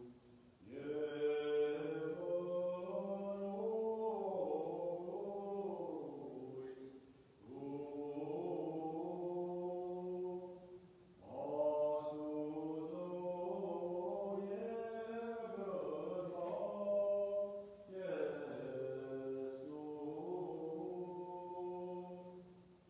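Unaccompanied Armenian liturgical chant, sung in four long phrases with short breaks between them.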